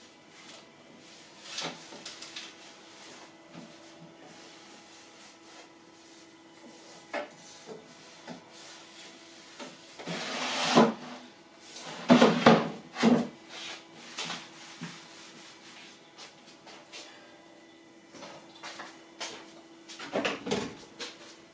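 Someone rummaging in a low wooden kitchen cabinet, taking out stored items: scattered knocks and bumps against the cabinet, a louder rustle about ten seconds in, a cluster of heavier thumps just after, and a few more knocks near the end.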